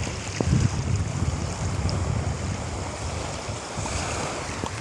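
Small waves washing onto a sandy sea shore, with wind rumbling on the microphone.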